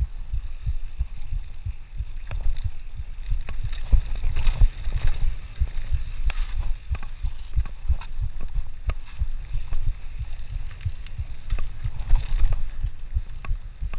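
Mountain bike rattling over a rough dirt trail, with frequent sharp knocks and clicks from the bike over an uneven low rumble of wind buffeting the microphone.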